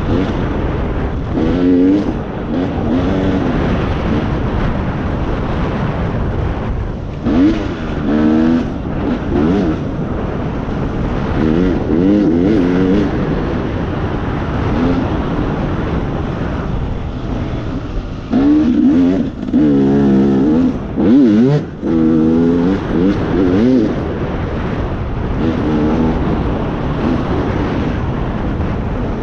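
A vehicle engine revving up and down again and again over a steady rushing of wind and ride noise, with bursts of higher revs at several points.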